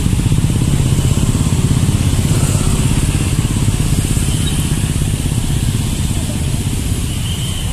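Dense road traffic of many motor scooters and cars moving slowly in a queue. Their small engines run close by as a steady hum.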